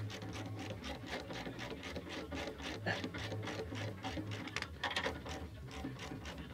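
A ratchet wrench clicking rapidly as it is worked back and forth, tightening the anchor-bolt nuts at the base of a car-lift post. A low hum comes and goes beneath it.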